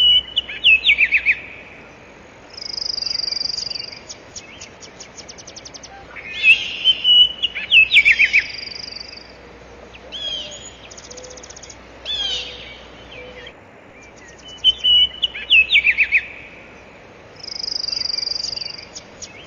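Birds calling: phrases of high whistled chirps with quick falling notes, alternating with buzzy trills and rapid clicking rattles, repeating several times over a faint steady hiss.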